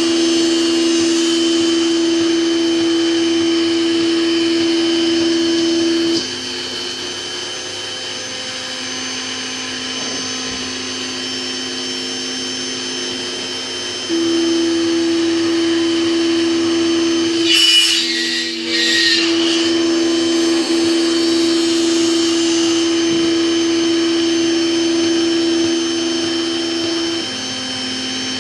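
Proxxon MF-70 CNC mini mill's spindle and axis drives whining steadily as it cuts 3 mm acrylic sheet. The whine is louder for the first six seconds and again from about 14 s to 27 s, with a brief noisy break around 18 s.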